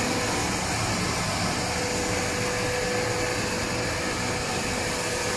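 Gas-heated continuous conveyor fryer test-running: its gas burner and its oil-filter and oil-circulation pumps run together in a steady even roar with a faint steady hum, all running normally.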